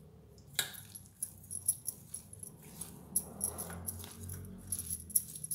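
Steel spoon stirring and scraping a thick masala vada mixture of ground beans, chopped onion and grated coconut in a stainless steel bowl. Irregular clinks of metal on metal with a bright ring begin about half a second in.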